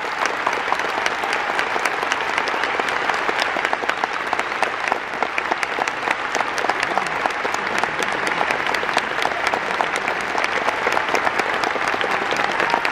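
Large stadium crowd applauding steadily, many hands clapping at once, in a domed ballpark.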